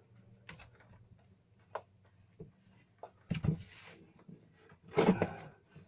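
Scattered knocks and clicks of hands working heavy battery cable and fittings into place, with a short scraping rustle about three and a half seconds in and a louder clatter around five seconds in.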